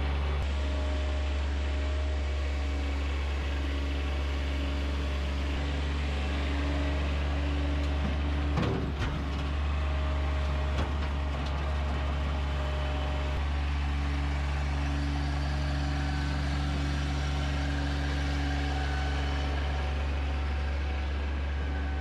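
Bobcat MT100 mini track loader's diesel engine running steadily at working speed while the loader lifts a heavy concrete slab. There are a couple of brief knocks around nine to eleven seconds in.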